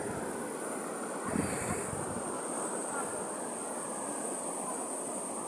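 River water rushing over a waterfall, a steady even rush, with a brief low bump about a second in.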